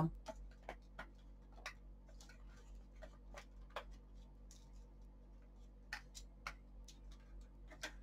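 Faint, irregular plastic clicks and light knocks as a filter is fitted back into a cordless stick vacuum.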